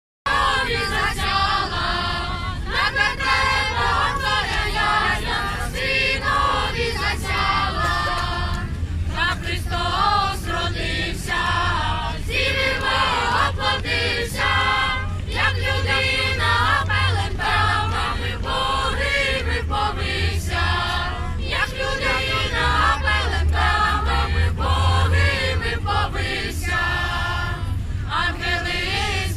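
Children's choir, joined by a few adult voices, singing a Christmas carol unaccompanied.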